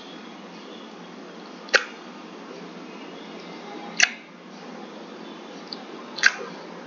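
Tongue clicks: the tip of the tongue, pressed behind the upper front teeth, is snapped down off the palate, three sharp clicks about two seconds apart. This is a repeated tongue-stretching exercise for jaw tension from teeth grinding.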